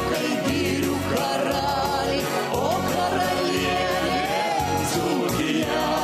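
A woman's singing voice together with a group of voices, singing a song over band accompaniment.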